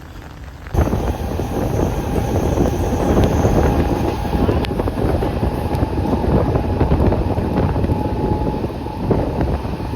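A moving vehicle's rumble with wind buffeting the microphone, starting abruptly about a second in and then holding steady.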